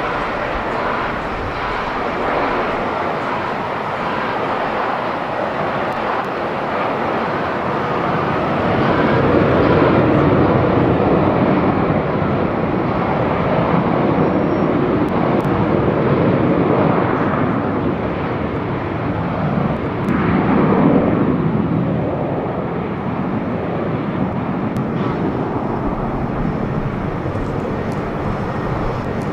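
Airbus A350 jet airliner on its arrival, its Rolls-Royce Trent XWB engines a continuous rush that swells about a third of the way in and peaks again about two-thirds through.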